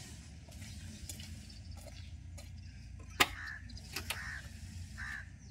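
Footsteps on gravel with scattered clicks and taps over a low steady hum, the sharpest click about three seconds in as the excavator's cab door handle is worked.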